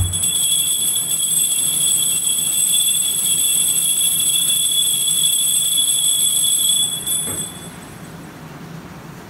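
Altar bells ringing steadily at the elevation of the consecrated host, a high bright ringing that stops about seven and a half seconds in. The ringing marks the consecration.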